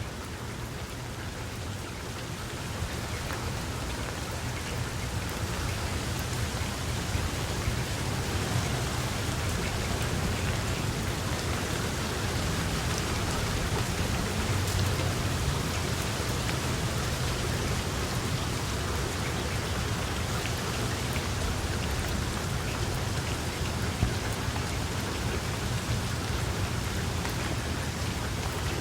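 Steady rain falling, a dense even patter, growing a little louder over the first several seconds and then holding level.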